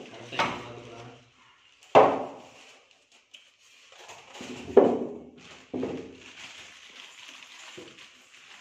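Several short, sudden voice-like bursts, the loudest about two and five seconds in, with a faint crinkling of plastic packaging wrap between them.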